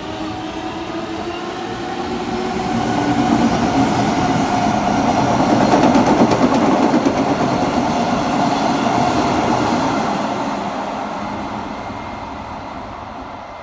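Odakyu 7000 series LSE Romancecar passing through a station at speed: wheel and rail noise grows as it approaches, is loudest as the cars go by about six seconds in, then fades as the train draws away.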